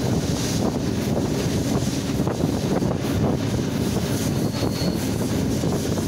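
Steady rumble of a moving train's wheels on the track, heard from aboard, with wind buffeting the microphone and a few faint clicks.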